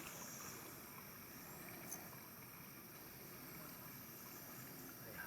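Faint, steady outdoor background noise with a light click about two seconds in.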